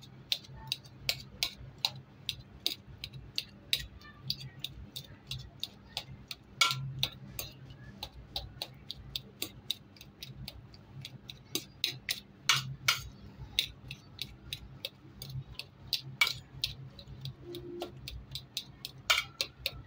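A metal fork mashing boiled pumpkin in a metal bowl: its tines click and tap against the bowl in irregular strokes, about three a second.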